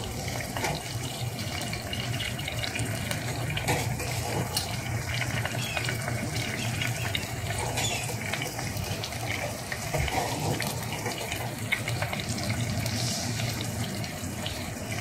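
Beef pieces and ginger-garlic paste frying in oil in a pot, with a steady sizzling and bubbling of the meat's released juices.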